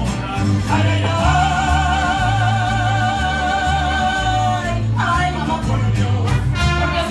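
Mariachi band playing live with microphone-amplified singing over guitars and a deep bass line. From about a second in, a singer holds one long high note with vibrato for about four seconds, then the vocal phrases resume.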